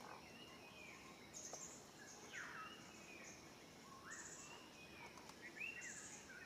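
Faint outdoor nature ambience: birds giving repeated short falling chirps, with brief high-pitched buzzes about once a second over a soft background hiss.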